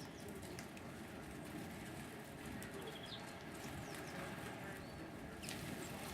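Small garden birds chirping now and then, a few brief high calls over a faint, steady outdoor background.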